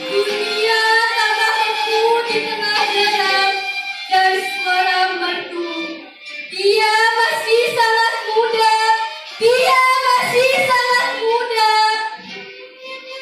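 Young girls' voices singing a slow melody in long held phrases, the sung part of a musicalised poem; the singing grows quieter near the end.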